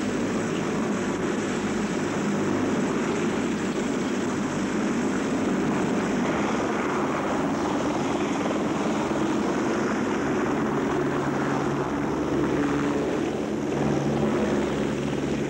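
Kamov Ka-26 helicopter flying low overhead, its engines and rotors running steadily, a little louder near the end.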